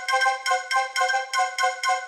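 iPhone ringtone with a marimba-like mallet sound: a quick, repeating melody of struck notes, about five a second.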